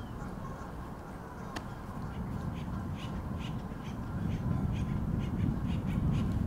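A low rumble that builds steadily in loudness, with birds calling in short notes two or three times a second above it.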